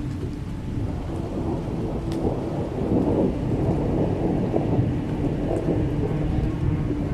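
Dark ambient sound-effect bed: a continuous deep rumble like rolling thunder, with a faint held tone running through it.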